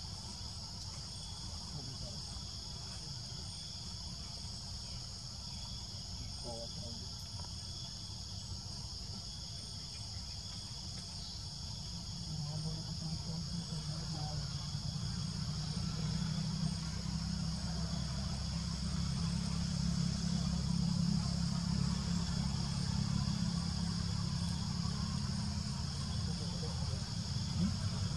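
Steady, high-pitched chorus of insects droning in the forest canopy, with a low rumble underneath that grows louder about twelve seconds in.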